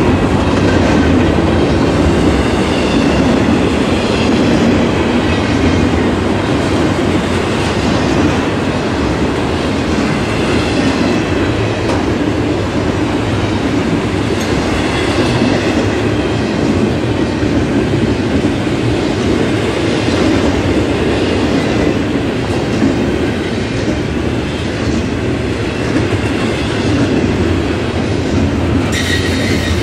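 Double-stack intermodal container train rolling past at speed: a steady, loud rumble of steel wheels on rail with rhythmic clicking from the wheels, and a faint high wheel squeal rising and falling now and then.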